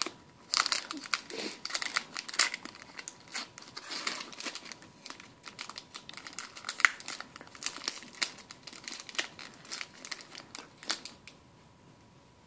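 Foil wrapper of a Pokémon Plasma Blast booster pack being torn open and crinkled by hand: a dense run of sharp crackles and rustles that dies away about a second before the end.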